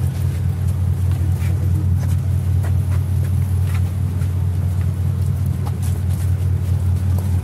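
Steady low rumble of an engine running close by, with scattered knocks and rustles of a handheld camera being jostled.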